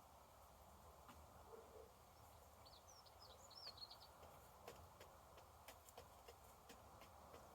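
Faint chirps from a small bird, a short cluster about three to four seconds in, over a low steady background hush with scattered light ticks.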